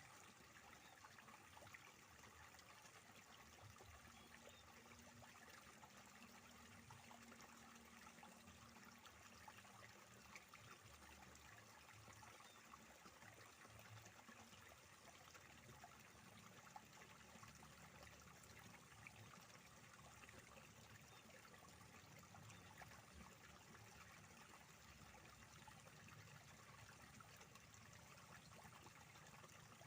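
Faint, steady trickle of water flowing in an irrigation channel.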